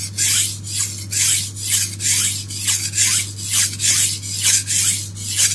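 Steel knife blade rubbed back and forth on an oiled India stone, a rhythmic rasping at about two strokes a second. The strokes are grinding the edge bevel to raise a burr.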